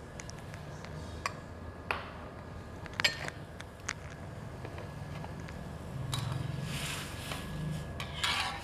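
Four light metal clinks of kitchen utensils and dishes in the first few seconds, then a metal wok spatula stirring pork slices through the water in a steel wok near the end, over a steady low hum.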